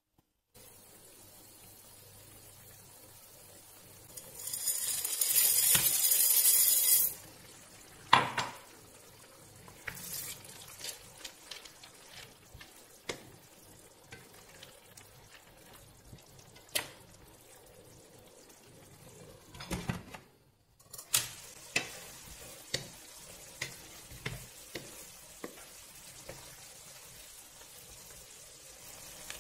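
Tomato sauce with macaroni simmering and sizzling in a stainless steel frying pan while a wooden spoon stirs, with scattered light knocks of the spoon against the pan. About four seconds in, a loud hiss runs for about three seconds.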